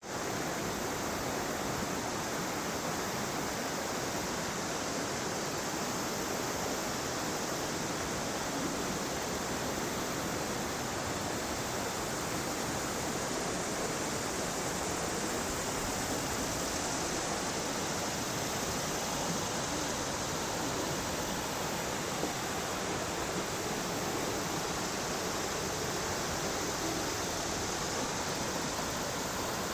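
River water rushing steadily over rocks and rapids.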